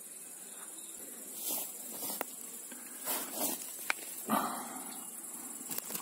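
Grass and leaves rustling in several irregular bursts as someone pushes through dense vegetation, with a few sharp twig-like clicks, over a steady high hiss.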